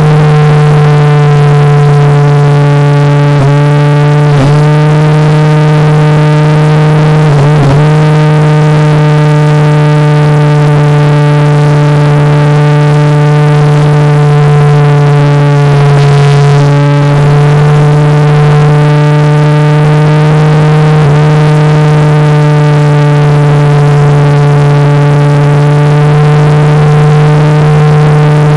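RC airplane motor and propeller running at steady high throttle, recorded by a phone taped to the airframe: a loud, even drone with a few brief dips in pitch.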